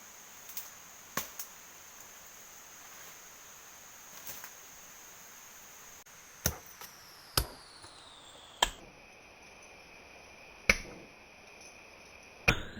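Sharp chopping knocks: a pair near the start, then five more spaced one to two seconds apart from about halfway. A steady high tone runs underneath and drops in pitch partway through.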